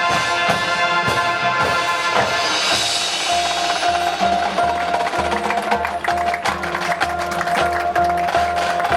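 Marching band music: wind instruments holding sustained chords, then about three seconds in a repeated high held note over a pulsing low line, with the front-ensemble and drum-line percussion striking throughout.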